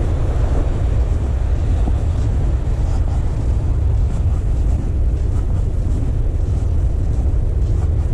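Wind buffeting the camera's microphone: a steady, loud low rumble with no letup.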